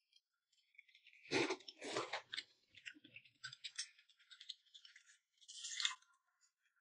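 Close eating sounds: crunchy chewing of pickled mustard tuber, loudest about a second and a half in, with small wet clicks of the mouth after it. A short slurp near the end as rice porridge is sipped from a bowl.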